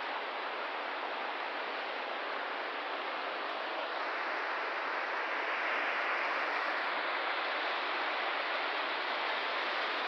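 River water rushing over rocks and a spillway, a steady hiss that grows a little louder and brighter about four seconds in.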